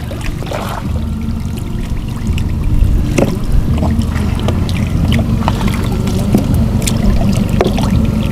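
Shallow muddy water sloshing and trickling, with scattered small splashes and knocks over a steady low rumble.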